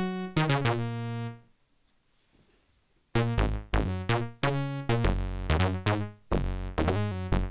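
Nunomo Qun mk2 synthesizer playing a rapid run of short, bright pitched notes through its low-pass filter, swept by a filter envelope from envelope generator 2. The notes stop for about a second and a half, then resume at the same pace.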